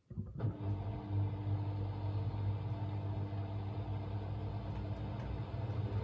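Hoover H-Wash 700 front-loading washing machine starting up again after a brief pause and running with a steady low hum. Its drum is not spinning at speed because a suds lock, set off by too much foam, is holding back the second spin.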